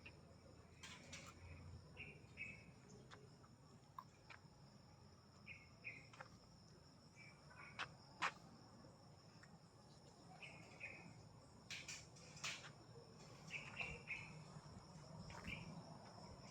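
Faint insect drone, a steady high-pitched hum, with short bird chirps every couple of seconds and a few sharp clicks, the loudest about eight seconds in.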